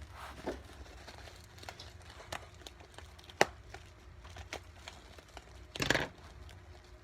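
Packaging being opened and handled during an unboxing: plastic and paper crinkling and rustling with scattered clicks, one sharp click about three and a half seconds in and a louder burst of rustling about six seconds in.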